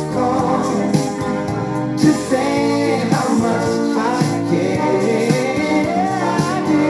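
A song with singing over instruments, played back from a record on a Technics SL-5 linear-tracking turntable.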